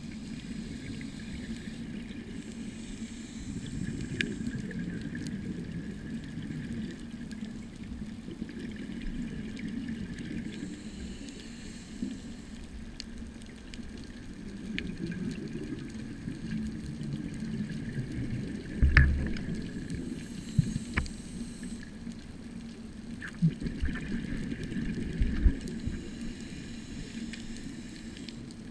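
Muffled water sound with a steady low rumble, patches of bubbling hiss that come and go every several seconds, and a few sharp clicks and low knocks.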